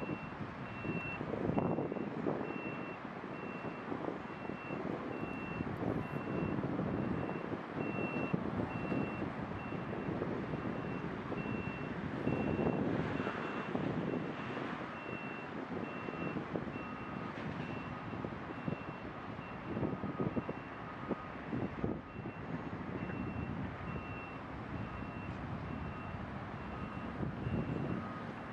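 Distant jet engine noise from a Boeing 777's GE90 turbofans as it begins its takeoff roll, an uneven rumble that swells and dips. Over it a vehicle's reversing beeper repeats about twice a second, and a second, lower-pitched beeper joins for several seconds past the middle.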